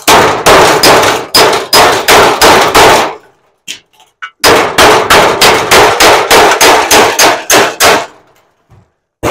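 Hammer striking a sheet-metal panel, hammering a bent edge down to straighten it: fast ringing metal clangs at about three a second, in two runs of a few seconds with a short pause between, and one more blow at the end. Really loud.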